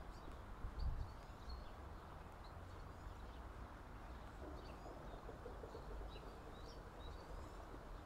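Small songbirds chirping faintly in the background: many short, high chirps scattered throughout, over a low rumble.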